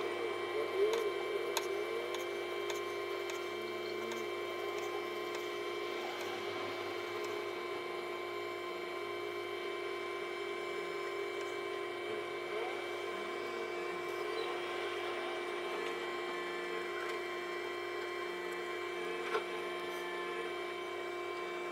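Wooden kitchen knife slicing through a zucchini and knocking on a bamboo cutting board, with a run of quick cuts about a second in and a lone knock near the end, over a steady hum.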